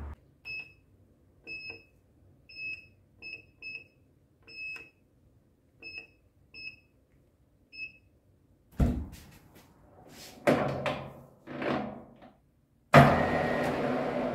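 Sino SDS6-3V digital readout beeping as its keypad buttons are pressed: about ten short, high beeps, spaced unevenly. In the second half come several loud clunks, and near the end one very loud knock that rings on and fades.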